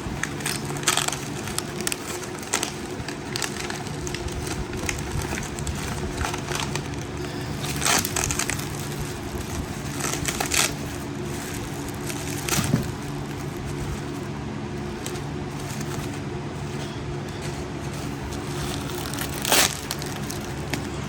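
Packing material rustling and crinkling in irregular bursts as a parcel is unwrapped by hand, over a steady low hum.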